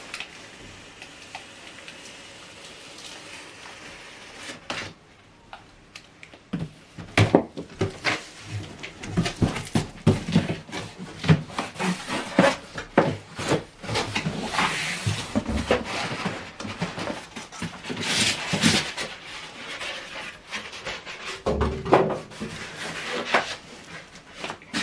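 Packaging of a soundbar being unboxed: irregular knocks, scrapes and clunks of cardboard and contents being handled, with several longer bursts of rustling. It begins after a few seconds of quiet.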